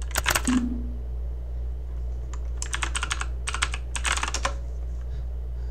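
Typing on a computer keyboard: a quick run of key clicks at the start, then three more rapid bursts of keystrokes in the middle, over a steady low hum.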